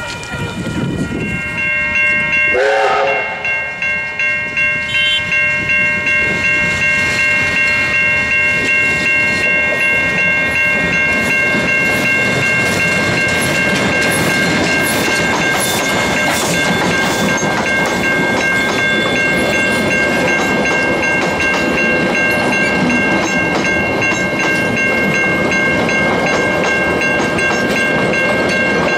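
Ab-class steam locomotive giving a short whistle that falls in pitch near the start, then its exhaust beating about two to three times a second as it pulls a train of carriages past. A level-crossing alarm rings steadily through the passing.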